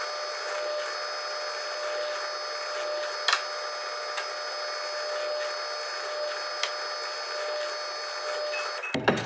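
Ryobi benchtop drill press running steadily with a constant whine while a 1/8 inch bit drills holes through a wooden board, with a few sharp clicks. The sound cuts off just before the end.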